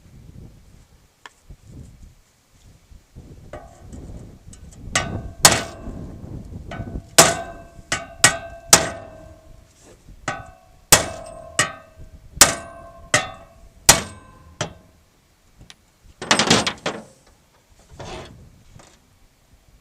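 A hammer striking metal about a dozen times in uneven groups, knocking a mushroomed, flared-out end back down. The blows ring briefly, and a short noisy burst follows near the end.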